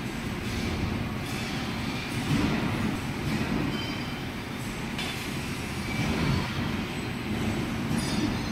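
Metal lathe running with a steady mechanical rumble, with short scraping cuts now and then as a boring bar cuts an oil-groove slot inside a bushing.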